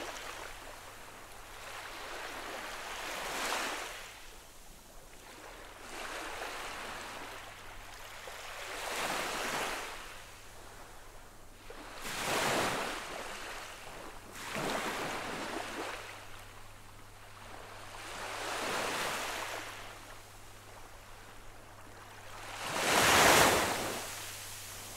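Small ocean waves gently lapping on a sandy beach. Each wave is a soft wash that rises and falls every three to five seconds, and the last one, near the end, is the loudest.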